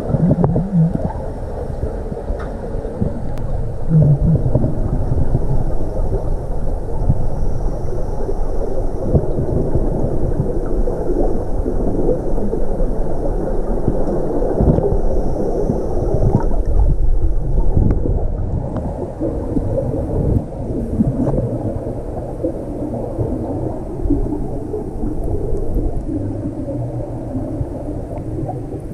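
Underwater ambience picked up by a camera housing in a deep diving pool: a steady low rumble and gurgling of water, with a faint high hum and a few brief low hums in the first few seconds.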